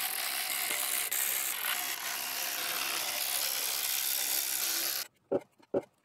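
A ratchet working out the valley pan bolts: steady, dense ratcheting that cuts off suddenly about five seconds in, followed by a couple of light clicks.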